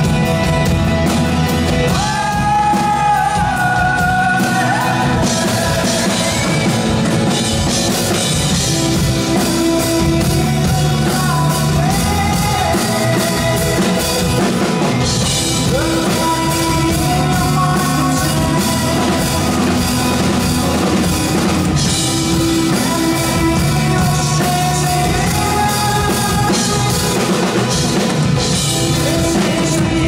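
Live rock band playing a song: a singer's voice over acoustic guitar, electric guitar and drum kit.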